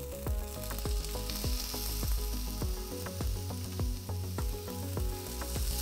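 Zucchini slices sizzling in an oiled grill pan as they are turned over with metal tongs, with short clicks of the tongs against the pan.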